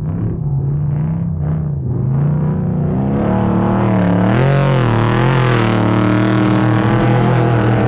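Off-road race vehicle engine running hard, its pitch rising and falling as the throttle comes on and off, growing fuller about three seconds in.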